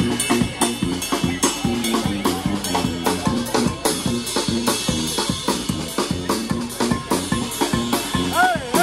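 Brass band with a drum kit playing an upbeat party tune: a repeating sousaphone bass riff over a steady drum beat. Near the end a few short swooping horn notes come in.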